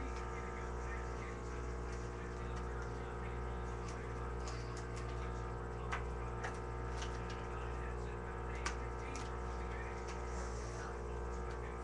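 Steady electrical hum with a few light clicks from a playing card being handled and flicked, the clearest about six seconds and nine seconds in.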